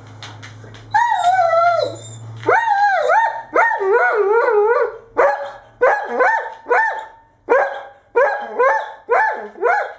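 Irish setter vocalising. About a second in it gives a long call that falls in pitch, then a long wavering, yodel-like howl, then a run of short pitched barks at about two a second.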